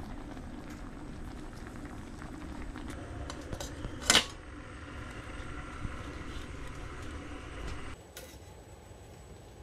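A pot of soup simmering, with a steady low bubbling and one sharp click about four seconds in. The steady sound drops off suddenly about eight seconds in.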